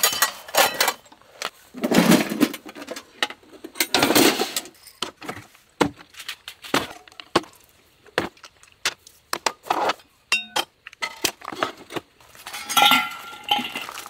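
Dishes and utensils clinking and knocking as they are handled, with many short clicks in quick succession and a few longer, louder clatters about two and four seconds in.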